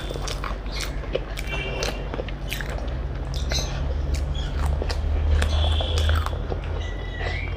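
A person chewing and biting food close to the microphone, with scattered wet clicks and smacks of mouth sounds, over a steady low hum that swells in the middle.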